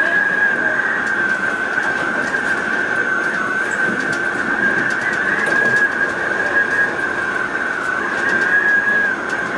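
Siemens H-Bahn suspended monorail car running along its overhead track, heard from inside the cabin: a steady high whine over an even rumble.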